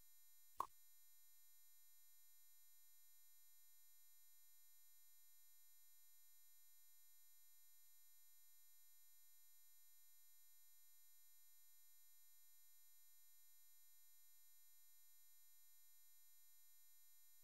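Near silence, with a single short click about half a second in and a very faint steady tone beneath.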